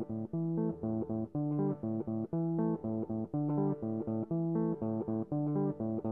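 Background music: a plucked guitar melody over bass, its notes picked out one by one in a steady rhythm.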